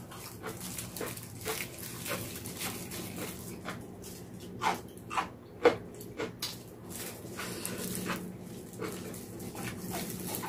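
Close-miked eating of a vegetable pancake: wooden chopsticks clicking and scraping on a pan as pieces are picked up, and wet chewing with sharp mouth clicks. The loudest clicks come in a quick cluster a little past the middle.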